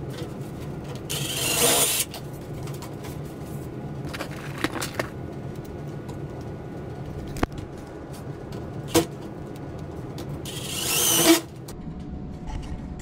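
Power drill driving screws through the tabs of a sheet-metal HVAC duct to fasten it back together. It runs in short bursts of about a second each, rising and then stopping abruptly: once about a second in, more weakly in the middle, and again near the end, with a couple of sharp clicks in between.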